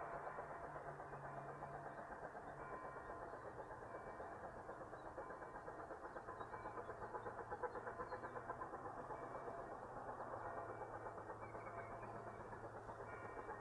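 Train running: a locomotive's engine drones steadily under a dense clatter. The drone drops in pitch about six seconds in.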